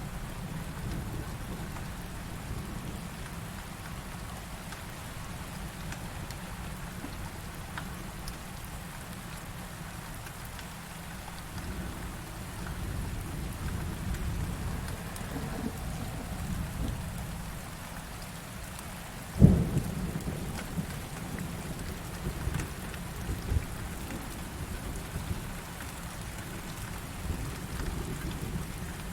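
Heavy rain falling steadily under a continuous low rumble of thunder. About two-thirds of the way through, a sudden loud thunderclap cracks and rolls off into rumbling.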